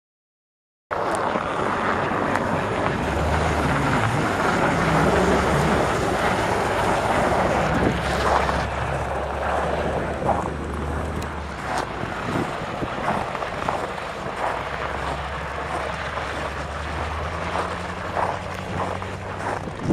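Wind noise on the microphone over a steady low hum of vehicle engines running. It starts suddenly about a second in, after silence.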